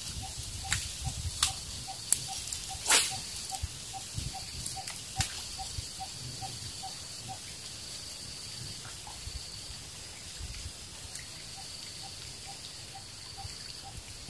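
Quiet outdoor ambience: a high steady buzz that comes and goes, a soft ticking about three times a second that pauses for a few seconds midway, and scattered light clicks, with one louder swish about three seconds in.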